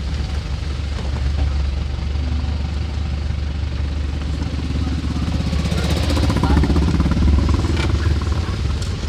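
Small motorcycle engine revving up and down as it rides the trail, loudest in the second half, over a steady low engine drone.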